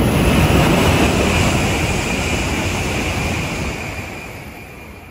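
N700S Kamome shinkansen running through the station at speed on the through track without stopping: a loud rush of wheel and air noise with a high hiss, peaking in the first second and then fading away.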